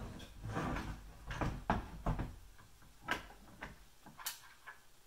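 Aluminium frame of a 3018 CNC router kit knocking and clunking as it is handled and set down on a wooden workbench: a string of separate knocks and scrapes with short rattles.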